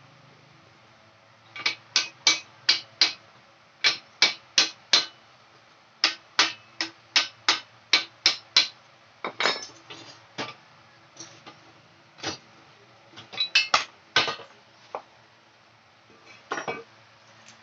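Metal hammer blows on a BMX's handlebar stem to knock it loose. Sharp, ringing metallic strikes come in quick runs of four or five, about three a second, with short pauses between runs, then more scattered blows later on.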